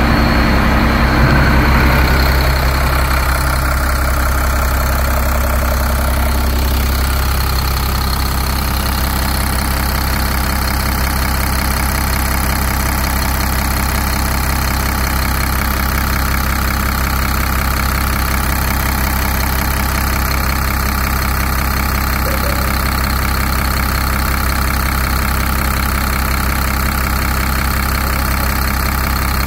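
Cummins ISC 8.3-litre inline-six diesel engine idling. It is a little louder for the first couple of seconds, then settles into a steady idle.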